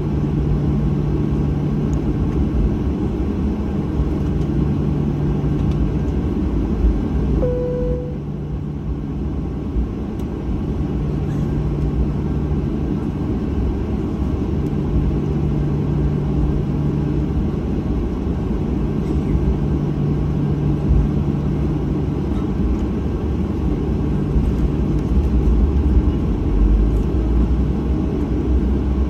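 Jet airliner's engines and cabin noise heard from inside the cabin while the plane taxis: a steady rumble with a pulsing hum. A short single tone sounds about seven seconds in, and the low rumble grows stronger near the end.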